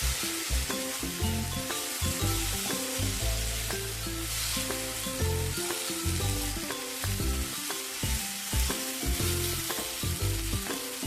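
Boiled eggs and potatoes being stirred through sizzling fried masala in a pan, with a steady hiss of frying. Background music with a melody runs over it.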